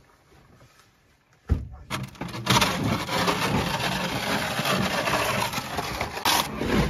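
Plastic snow shovel scraping snow along a wooden railing: a single knock about a second and a half in, then a continuous rough scrape from about two seconds in until just before the end.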